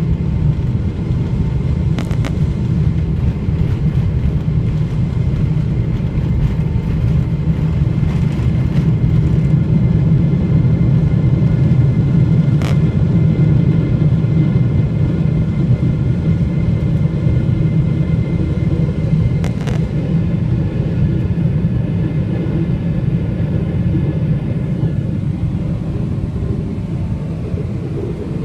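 Boeing 777 jet engines at takeoff power, a steady low rumble with a faint high whine over it. It swells a little near the middle and eases off toward the end, with a few sharp clicks.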